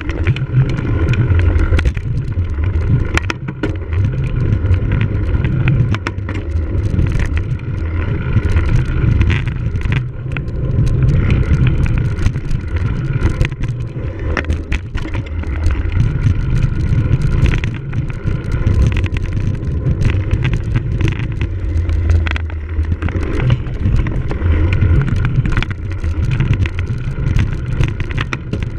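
A cyclocross bike ridden hard over rough ground: a continuous loud rumble of wind and tyres that swells and eases every few seconds, with frequent small knocks and rattles from the bike.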